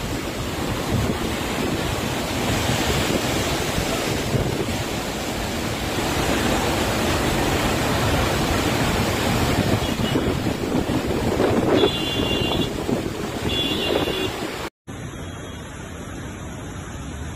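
Steady roar of a muddy flash-flood torrent cascading down a hillside, with wind buffeting the microphone. Two brief high tones sound shortly before it cuts off abruptly about 15 seconds in, giving way to a much quieter, duller background.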